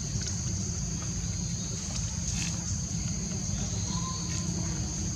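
Steady high-pitched insect drone over a constant low rumble, with one short bird-like chirp about four seconds in.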